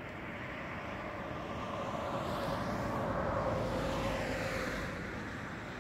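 A vehicle passing by: its sound swells to a peak about halfway through and then fades, its pitch falling as it goes.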